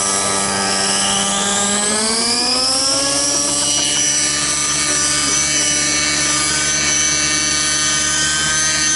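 Align T-Rex 600N radio-controlled helicopter's nitro engine running on the ground, its pitch rising smoothly from about two seconds in as the rotor spools up, then holding steady at the higher pitch.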